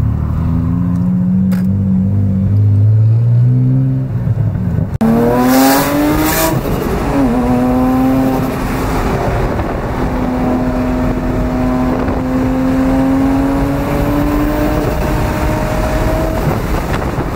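Heavily tuned Acura NSX V6 engine accelerating hard. Its pitch climbs for the first few seconds, jumps sharply with a burst of hiss about five seconds in, and drops at a gear change near seven seconds. It then pulls on with the pitch slowly rising.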